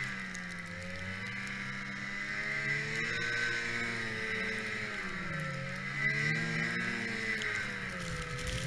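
1991 Yamaha Phazer II snowmobile's two-stroke twin engine running under throttle in deep powder. Its pitch sags and climbs again every couple of seconds as the load in the snow changes.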